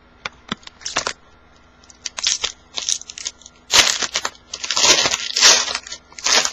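A foil card-pack wrapper being torn open and crinkled: a few light clicks at first, then a run of loud crackling and tearing bursts in the second half.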